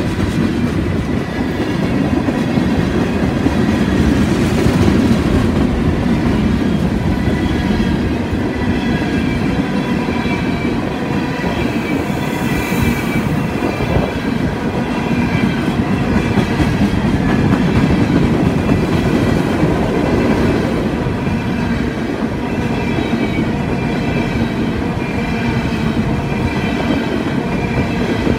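A CSX freight train's tank cars and open-top hopper cars rolling past close by: a steady loud rumble and clatter of steel wheels on the rails, with a faint high-pitched squeal coming and going.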